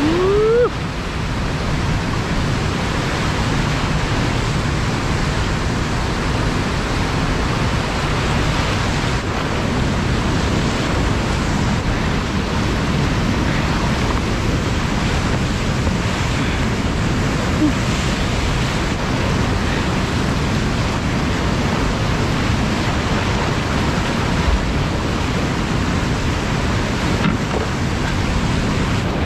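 Big-volume whitewater rapid rushing steadily all around a kayak, heard from the boat in the middle of the rapid at high flow. A brief rising whoop sounds right at the start.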